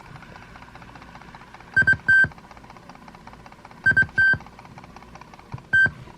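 Sony WM-EX677 Walkman's operation beeps through a small speaker: two short high beeps and a longer one, repeated about two seconds later, then a single beep near the end, over a low steady hiss.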